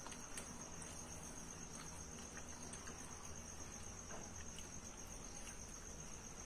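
Crickets chirping in a high, continuous, evenly pulsing trill, with a few faint clicks now and then.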